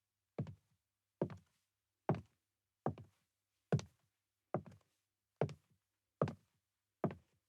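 High-heeled shoes walking slowly on a wooden floor: nine sharp heel knocks at an even pace, a little under one a second, each with a softer tap just after it.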